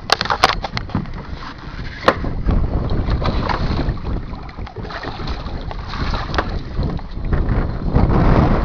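Wind buffeting the microphone outdoors on the water, with a few sharp knocks and clicks in the first two seconds and the rumble growing heavier near the end.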